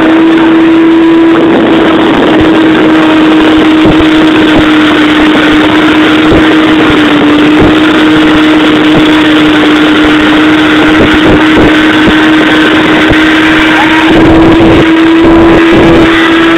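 Yamaha R6 sportbike's inline-four engine held at steady high revs, a constant high engine note that sags slightly midway and climbs a little near the end. Wind buffets the microphone, most heavily near the end.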